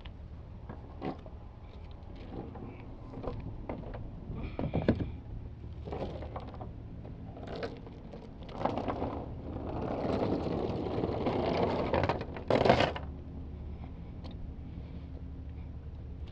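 3/8-inch BBB anchor chain and rope rode being handled on wooden dock boards: scattered clinks and knocks of chain links, then a few seconds of dragging and scraping, ending in one loud clatter about three-quarters of the way through.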